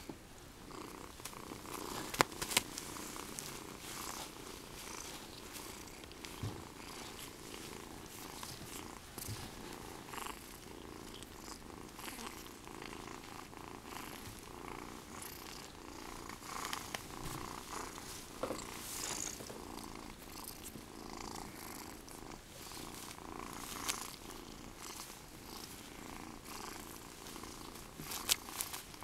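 Kitten purring steadily while being stroked and rubbed by hand, with a few short clicks and rustles of handling, the loudest about two seconds in and near the end.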